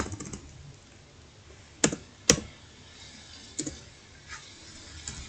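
Computer keyboard keystrokes as a number is typed: a handful of separate clicks spaced about a second apart, the loudest two close together near the middle.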